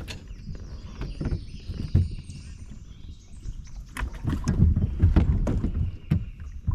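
Irregular knocks and thumps on a bass boat, over a low rumble, busiest about four to six seconds in.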